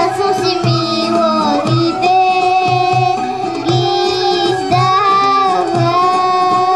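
A young girl singing a Bulgarian folk song into a microphone, holding long notes with a slight waver and gliding between pitches. She sings over instrumental accompaniment with a steady low beat.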